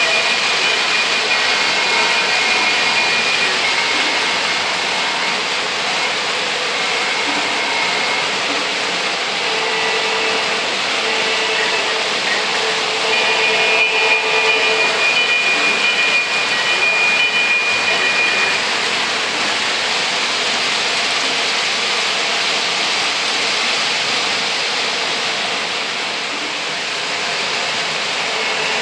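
O gauge model trains running on three-rail metal track: a steady rolling rumble and hiss with faint motor whine that comes and goes.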